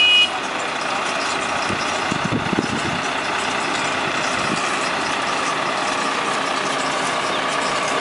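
A brief, loud high-pitched beep right at the start. Then a tractor engine and a Kartar round straw baler run steadily under way, an even mechanical drone.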